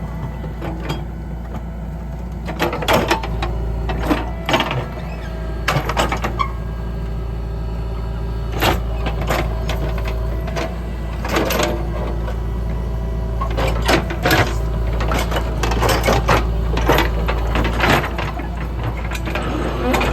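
JCB 3DX backhoe loader's diesel engine running steadily at working speed, with frequent irregular knocks and clanks as the machine dozes and levels soil.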